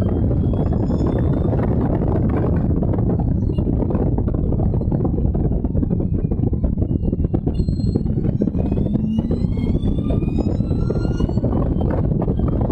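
Allard J2 race car's V8 engine running hard under racing load, heard from the open cockpit. In the second half a faint rising whine climbs as the car accelerates.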